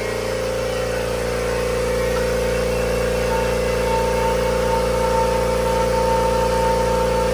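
Kobalt Quiet Tech 26-gallon oil-free electric air compressor running, very quiet, with a steady hum as its pump fills the empty tank on the first fill-up. A higher thin whine joins the hum about three and a half seconds in.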